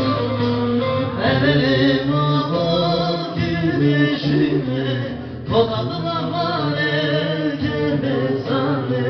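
Live singing by a man with a plucked lute accompaniment, the voice carrying a long, wavering melodic line.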